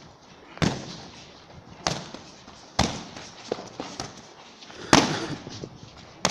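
Boxing-glove punches landing on focus mitts and a sparring partner's gloves: sharp hits about a second apart, with a few lighter taps between them. The hardest comes about five seconds in.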